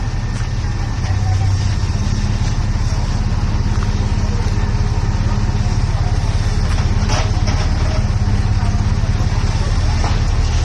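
A vehicle engine running steadily with a low drone, getting a little louder about a second in.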